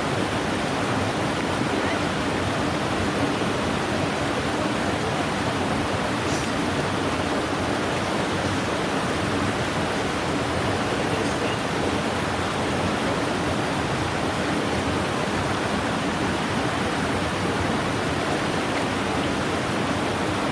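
Steady rushing of a fast, high-running mountain stream flowing over rocks, an even continuous noise.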